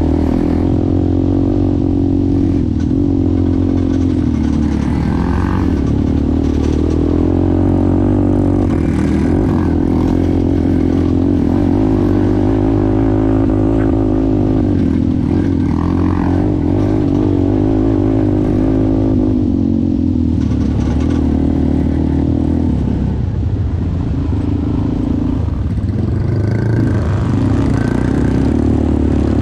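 ATV engine running continuously while riding, its pitch wavering slightly as the throttle changes.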